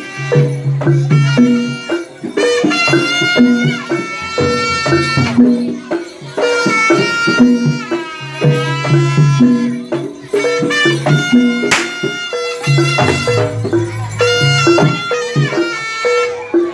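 Jaranan gamelan music played live: a shawm-like reed (slompret) carries a wavering melody over steadily repeating metallophone notes and drum strokes.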